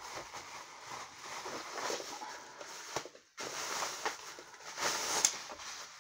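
Bubble wrap and a plastic bag crinkling and rustling as they are handled and pulled off a boxed statue, with small irregular crackles and clicks.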